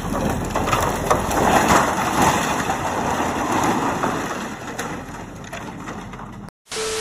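An excavator bucket crushes a shed, with its sheet-metal roof and wooden frame crunching, cracking and splintering in a dense, continuous clatter that fades over the last seconds. Near the end it breaks off abruptly, and a brief steady tone follows.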